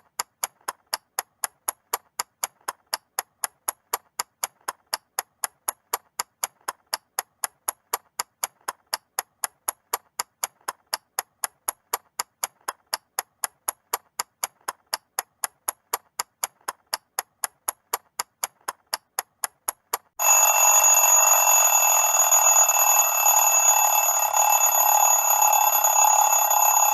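Mechanical clock ticking evenly, a few quick ticks a second. About twenty seconds in it stops, and a loud alarm starts ringing continuously: the alarm marking the end of the countdown.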